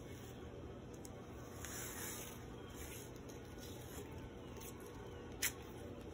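White athletic tape being pulled off the roll and laid around an ankle: faint rustling over a steady low hum, with one short, sharp tearing sound near the end.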